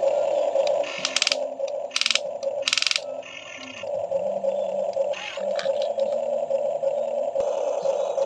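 Electric motors and plastic gearboxes of a Huina RC excavator whining steadily, the hum shifting in pitch now and then, with three short bursts of noise about a second apart early on.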